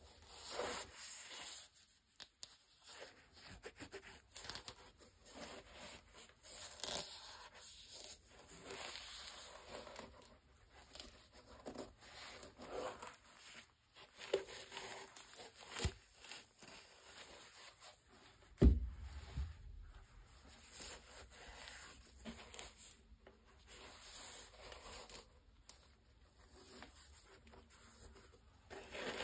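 Gloved hands rubbing and handling a sneaker's upper and laces: soft, irregular rustling and scratching, with one sharp knock about two-thirds of the way through.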